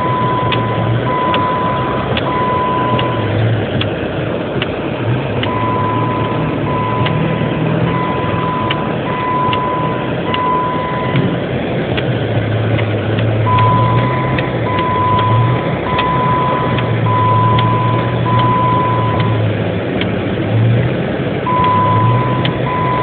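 Ford F-250's 7.3-litre V8 diesel engine running, its pitch rising and falling as the truck is driven. Over it the seatbelt-warning chime dings repeatedly, a high beep coming in runs with short pauses between, because the driver's seatbelt is unfastened.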